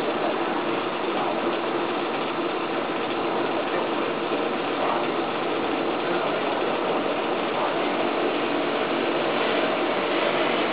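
Steady rushing, whirring noise of the charcoal-fired mini pottery kiln running, with a faint hum underneath and no change in level.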